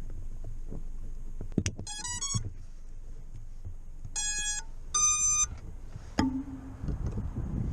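A 5-inch FPV quadcopter's ESCs playing their power-up tones through the brushless motors: a quick rising run of short beeps, then two longer beeps, the second higher, and a short low tone near the end. Handling clicks and rustle come in between.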